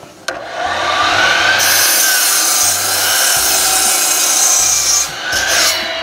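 DeWalt sliding miter saw starting up and cutting through a rough-sawn sawmill oak board to square off its end. The motor spins up with a rising whine, runs loud through the cut, and begins to wind down near the end.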